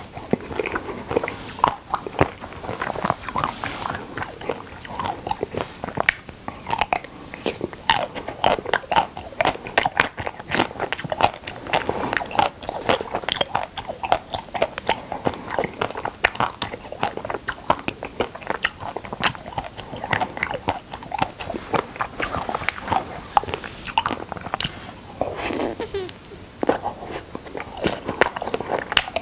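Close-miked biting and chewing of Okdongja milk caramel ice cream bars: repeated crisp crunches as the hard coating breaks, mixed with chewing of the milk ice cream inside, going on without a break.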